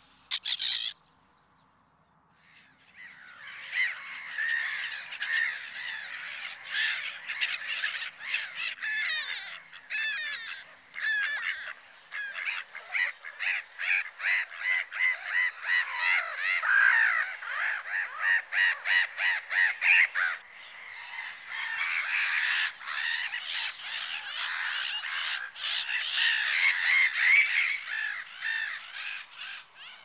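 Gulls calling, many harsh overlapping calls from a flock, starting about three seconds in and carrying on without a break.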